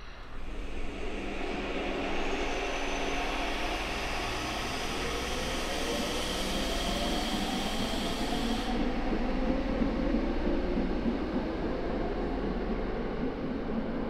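Saitama Railway 2000 series train's Mitsubishi IGBT VVVF inverter and traction motors under acceleration: the motor whine rises steadily in pitch over running noise, and the highest hiss cuts off suddenly about nine seconds in.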